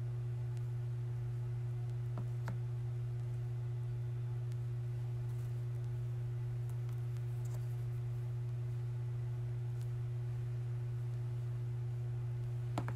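A steady low hum with a fainter higher tone held above it, unchanging throughout, with a couple of faint light clicks about two seconds in.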